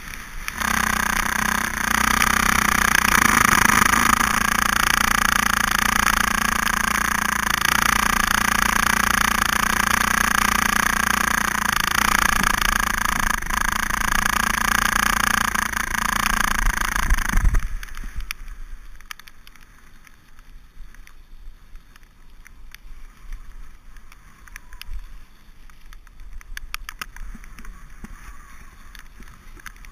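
Mountain bike descending a wet road at speed: a loud, steady rush of wind and tyre noise on the camera. About two-thirds of the way through it drops off suddenly to a quieter hiss with light, irregular clicks.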